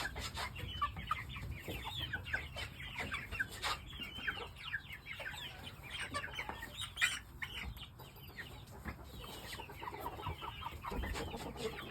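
A group of young Shamo gamefowl calling continually, many short high peeps and clucks one after another, with a few sharp knocks from handling.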